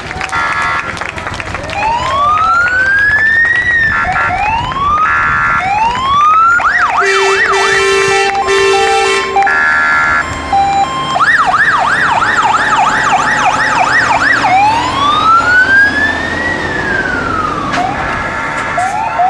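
Fire engine siren sounding close by, switching between long slow rising-and-falling wails and runs of fast yelping sweeps, broken by short steady multi-tone horn blasts.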